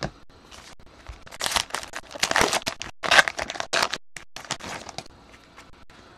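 Trading cards being handled and a card pack's wrapper being crinkled and torn open: a run of irregular rustles and sharp crackles, loudest between about one and four seconds in.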